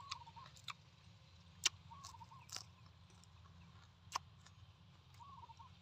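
Faint eating sounds of chewing lettuce and braised pork, with a few sharp mouth clicks, the loudest a little before halfway. A bird gives three short, faint calls.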